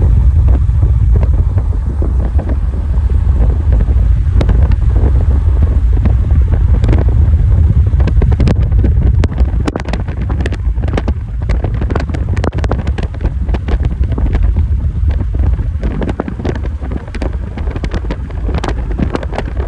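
Wind buffeting the microphone over the rumble of a moving vehicle on the road. The rumble eases about halfway through, leaving many scattered sharp crackles.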